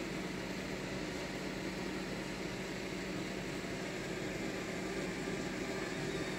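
Steady room noise: an even hiss over a constant low mechanical hum.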